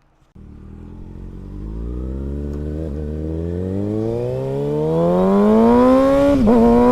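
Kawasaki ZX-6R 636 inline-four motorcycle engine pulling away and accelerating, starting suddenly and rising steadily in pitch for several seconds. Near the end the pitch dips briefly, then holds steady.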